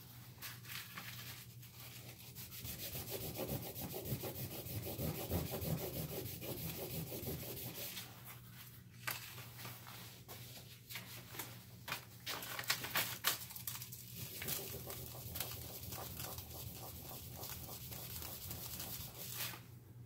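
Harmonica mouthpiece slider rubbed back and forth by hand on a sheet of sandpaper laid flat, a quick scratchy sanding with a few short pauses. Its bottom face is being dressed flat. The sanding stops near the end.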